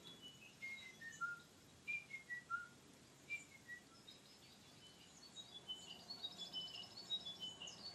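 Australian birdsong from a nature documentary: a clear whistled phrase of about five notes stepping down in pitch, repeated three times. From about five seconds in comes a higher falling series of notes with a fast trill over it.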